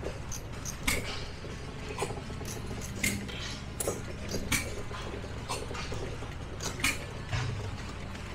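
Small stationary gas engines running, with sharp metallic clicks roughly once a second, unevenly spaced, over a low steady rumble.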